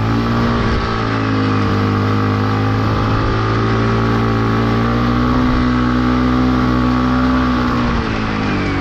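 Yamaha MT15's 155 cc single-cylinder engine held at high revs for about eight seconds during a burnout, with the rear tyre spinning, then dropping back about eight seconds in.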